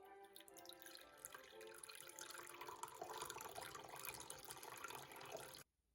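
Water running from a tap into a sink, splashing, with faint music fading out underneath early on; the water sound cuts off suddenly near the end.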